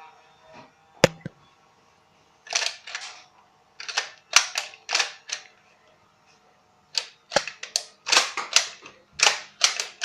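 Nerf blaster firing darts: a sharp click about a second in, then quick shots in three bursts, the last and longest near the end.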